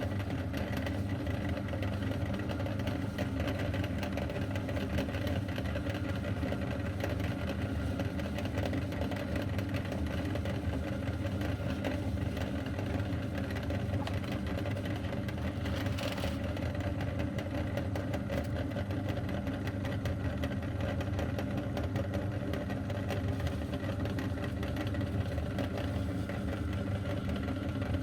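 Electric meat grinder's motor running steadily with an even hum as it grinds crunchy cookies, with a short burst of rasping noise about halfway through.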